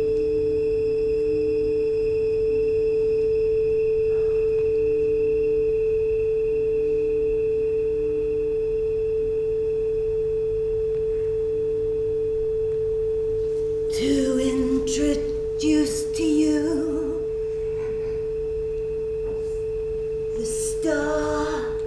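Steady, pure-sounding electronic drone held throughout, with a fainter pulsing tone and a low hum beneath it. About two-thirds of the way in, and again near the end, a wordless voice sounds briefly over the drone.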